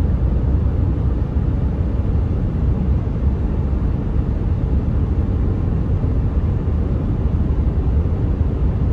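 Car driving at highway speed, heard from inside the cabin: a steady low rumble of tyres and engine.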